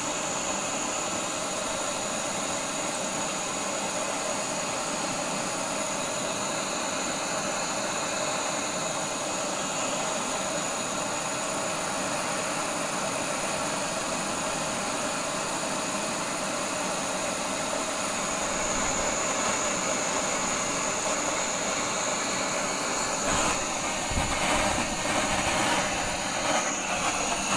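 Pipe-bodied gas blowtorch with air holes burning steadily, a constant rushing noise from the flame as it heats steel to a glow. Near the end there are a few knocks.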